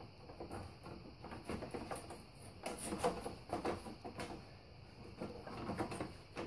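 A mesh bug screen scraping and rustling against the ATV radiator and its frame as it is slid in by hand and worked into its notches: a run of small scratches and taps.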